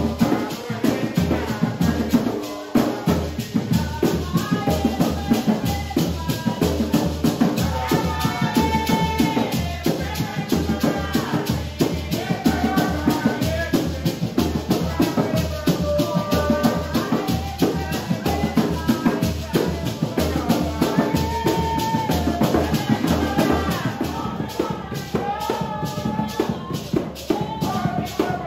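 Live Garifuna drumming: wooden hand drums beat a steady low pulse under a fast, even shake of maracas. Voices sing a melody over the rhythm.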